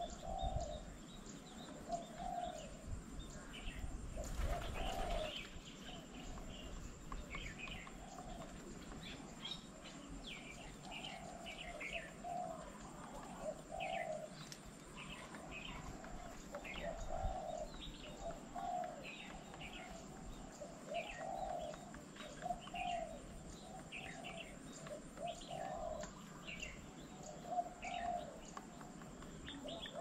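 Birds calling: a low cooing note repeated about once a second, with scattered short, higher chirps and tweets from other birds. A brief rush of noise comes about four seconds in.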